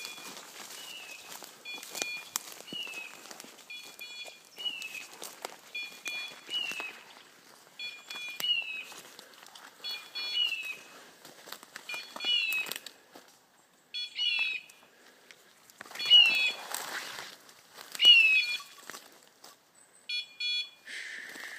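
Hunting dog's beeper collar sounding its point signal: a short electronic chirp repeated at an even pace of about one every one to two seconds. Rustling through dry leaves and brush runs underneath, with a louder burst of it about two-thirds of the way in.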